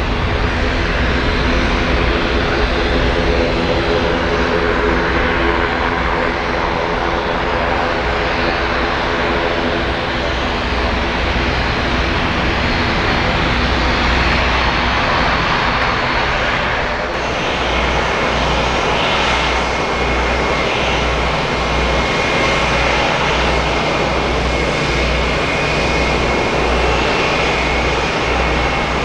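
Airliner jet engines running, a steady noise with several engine tones. About 17 seconds in it cuts abruptly to a different engine sound with a pulsing low rumble and a steady high whine.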